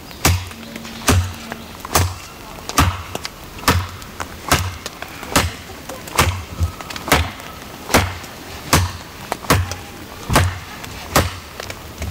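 An ESEE-5 fixed-blade knife chopping into a half-rotten oak branch. The blows come in a steady rhythm, a little more than one a second, each a sharp knock with a low thud.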